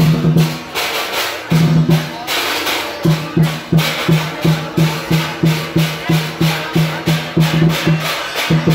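Percussion music led by a low pitched drum, with a bright rattling layer over it. The drum plays a few longer strokes, then from about three seconds in settles into an even beat of nearly three strokes a second.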